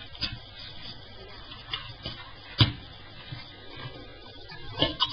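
Light handling of a plastic toy model: a few scattered sharp clicks and taps, the clearest about two and a half seconds in, over a low background.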